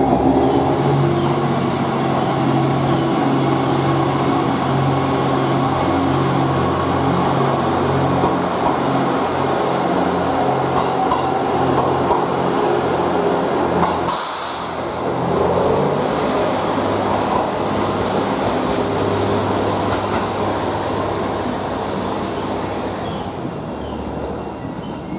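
Diesel engine of a JR East GV-E400 diesel-electric railcar running steadily as the train runs in past a platform, with wheel and rail noise. About 14 s in the sound cuts to another railcar approaching, its engine drone joined for a while by a faint high whine.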